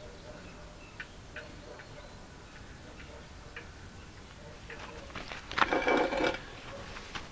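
Worm-gear reducer turned by a hand crank, giving light clicks about every half second. About five and a half seconds in, a louder, brief metallic whirr as a smaller reducer with a spoked handwheel is spun by hand.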